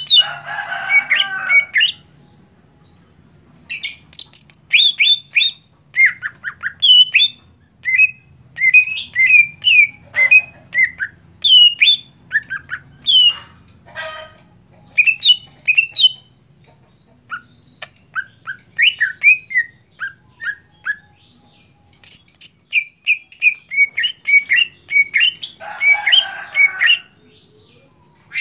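Male green leafbird (cucak ijo) singing in quick runs of short chirps and whistled notes that slide up and down. A harsh rasping burst at the start is followed by a pause of about two seconds, and another harsh burst comes near the end.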